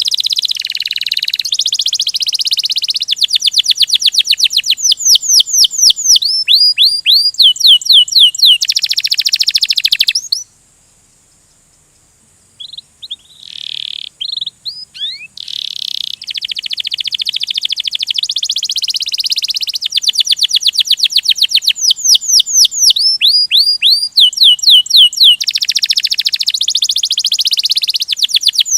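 Domestic canary singing a long rolling song of fast trills and rapid downward-sweeping whistled notes. The song breaks off for about two seconds a little before the middle, then picks up again with a few separate notes.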